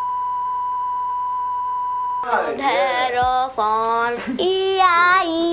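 A steady TV colour-bar test tone for about two seconds, cut off abruptly. Then a high voice sings wordless notes that slide up and down in pitch.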